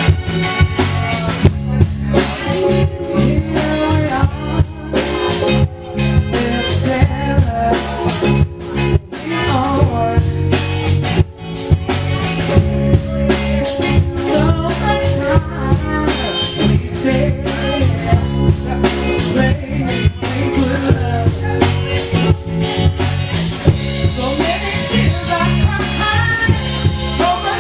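Live band playing amplified rock music: a drum kit keeping a steady beat under electric guitar, with a woman singing.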